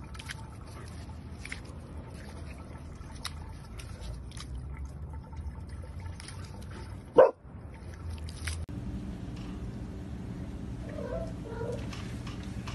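A dog playing at a fountain's water jet, with small clicks and splashes, barks once, short and loud, about seven seconds in. Then a steady indoor hum follows.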